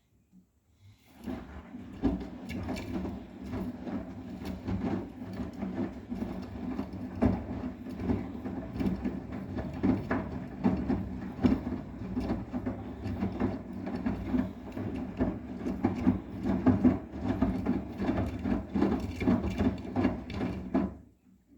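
Arçelik 9120M washing machine running, its drum turning with a low hum and a quick, irregular run of clicks and knocks, then stopping suddenly near the end.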